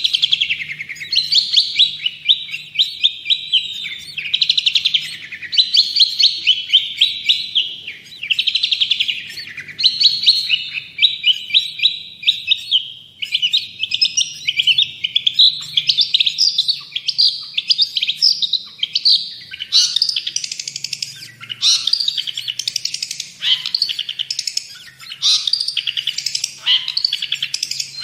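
Long-tailed shrike (cendet) in full song: a fast, unbroken stream of high chattering phrases, each a second or two long, following one another without pause.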